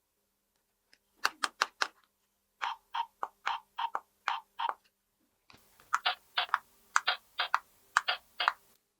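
Small plastic toy pieces being handled, making a run of short sharp clicks and taps, about three or four a second, in three groups with short pauses between.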